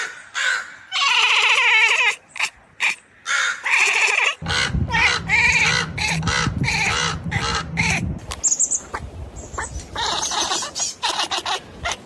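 Pet cats vocalizing: a series of short, wavering meows and squawky calls, one after another, with a low hum underneath for a few seconds in the middle.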